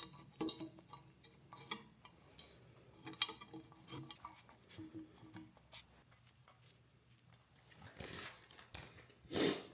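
Faint, scattered metallic clinks and taps of bolts and hand tools being handled during hand work on truck parts, with a short rustle near the end.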